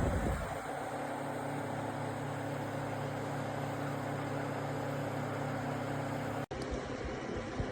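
Portable evaporative air cooler's fan motors running steadily: a low motor hum under an even whir of moving air. The sound drops out for an instant about six and a half seconds in, then carries on.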